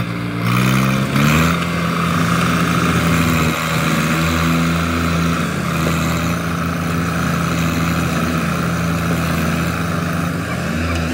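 Tractor diesel engines running hard under load as one tractor tows another, a Swaraj, out of deep mud. The engine note climbs at the start and then holds steady, and near the end it dips and climbs again.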